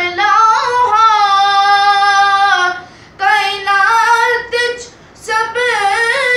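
A man reciting a Punjabi naat in song, unaccompanied and in a high voice, holding long notes with ornamented turns. He breaks off briefly for breath about three seconds in and again about five seconds in.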